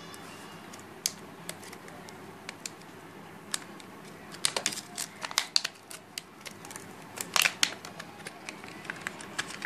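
Hands handling small plastic packaging and a clear plastic pouch: irregular sharp clicks and crinkles, in denser flurries about halfway through and again later on.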